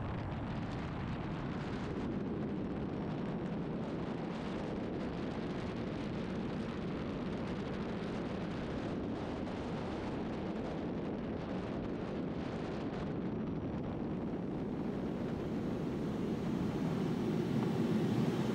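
Air rushing past a camera on a glider during its winch launch and climb: a steady, even roar of wind with no engine note, growing a little louder near the end.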